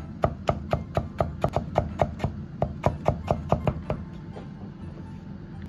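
Chinese cleaver cutting stacked potato slices into thin shreds on a thick end-grain wooden chopping block: an even run of knocks, about four a second, that stops about four seconds in.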